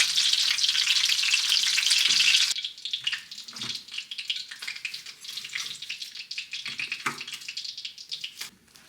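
Loud hissing, crackling sizzle that drops sharply about two and a half seconds in to a quieter, uneven crackle.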